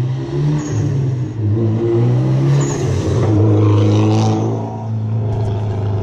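Mitsubishi Lancer Evolution X's turbocharged 2.0-litre four-cylinder running under throttle on a run past, its engine note rising and falling, breathing through an aftermarket AMS cold-air intake with an HKS blow-off valve fitted.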